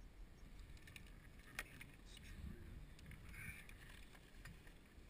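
Near silence: a faint low rumble with a few light clicks, one sharper click about a second and a half in.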